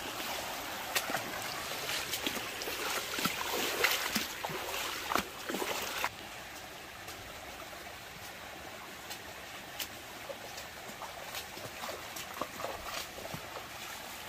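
Stream water trickling and flowing, with splashing and sloshing over the first six seconds; about six seconds in it drops suddenly to a quieter, steady trickle with a few small splashes.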